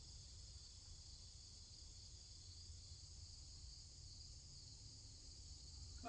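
Near silence: a faint, steady insect chorus with a faint low rumble beneath it.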